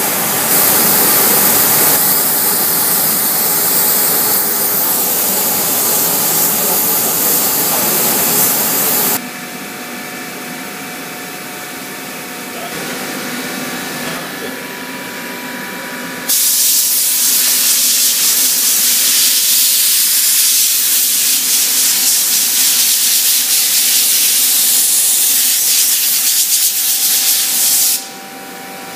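Gravity-feed compressed-air spray gun hissing steadily as it sprays chrome coating. About nine seconds in the hiss stops and a quieter steady hum with a few faint tones takes over, and about sixteen seconds in the loud hiss comes back until a short break near the end.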